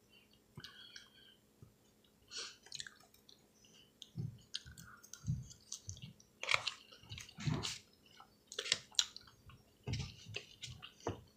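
Close-miked chewing of a mouthful of salad: irregular wet mouth clicks and smacks, coming in short bursts.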